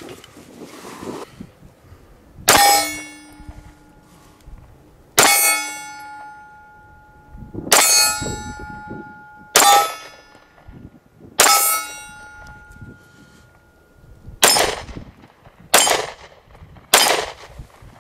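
Eight single shots from an Arex Delta M 9mm pistol. The first five come a couple of seconds apart, each followed by a long metallic ring as a steel target is hit. The last three come quicker, about a second apart, with no ring.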